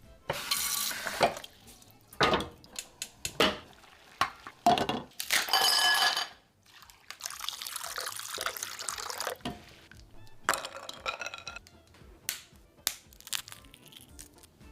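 A run of assorted kitchen sounds: sharp clicks and knocks, short rushing bursts, and a longer stretch of water-like noise from a tap or sink about halfway through.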